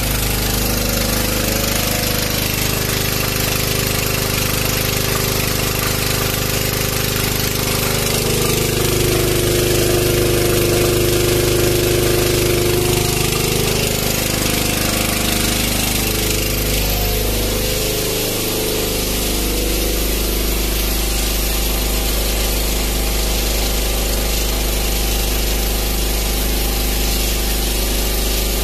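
DEKES DH3800 gasoline generator engine running under a load of about 2,700–2,800 watts and not sounding good, its pitch wavering and dipping for several seconds about a third of the way in before settling. The generator is overloaded at this load, which it cannot sustain for more than a minute or two.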